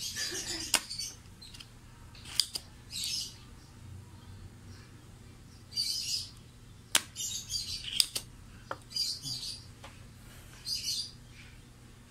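Spring-loaded desoldering pump snapping as its plunger is released to suck molten solder off a circuit board's joints, as burnt capacitors are removed: about six sharp clicks a second or more apart. Short high chirps come between the clicks.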